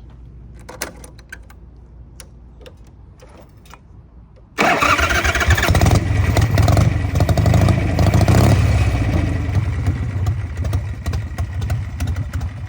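Harley-Davidson Shovelhead V-twin engine starting with a sudden loud catch about four and a half seconds in, then running, on its first start with freshly replaced intake manifold gaskets. Before it fires there are only a few light clicks.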